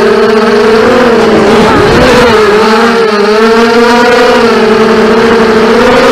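FPV racing drones in flight: the electric motors and propellers make a loud, steady buzz, and its pitch wavers up and down as the pilots work the throttle, dipping and rising most about two seconds in.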